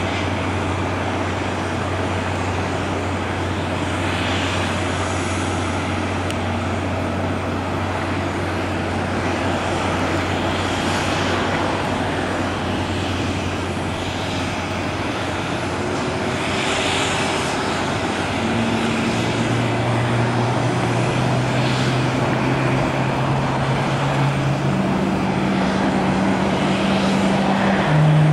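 Jet aircraft noise on an airport apron: a steady rush of engine noise with a low hum underneath. In the last third a few steady tones come in and step from one pitch to another.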